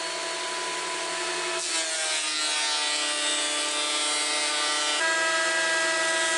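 Electric planer motor whining steadily while planing a board of apple wood. About two seconds in the pitch drops and a cutting hiss rises as the board feeds through under load; near the end the motor speeds back up as the board comes free.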